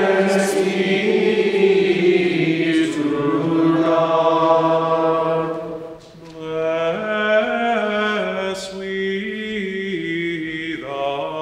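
Gregorian chant sung by a choir of voices, one melodic line carried through two phrases, with a short break about six seconds in before the second phrase begins.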